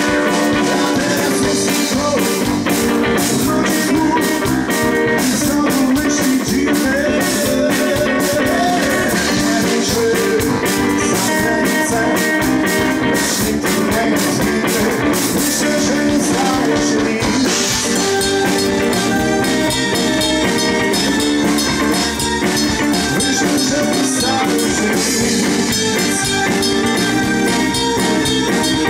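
Live rock band playing through a PA: drum kit, electric guitar and keyboard, with a man singing into the microphone.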